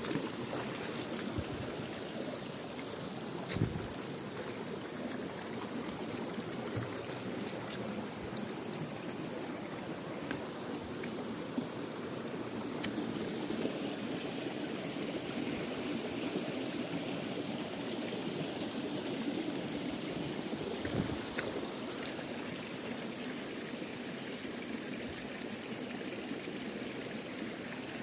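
Waterfall water rushing, an even continuous noise.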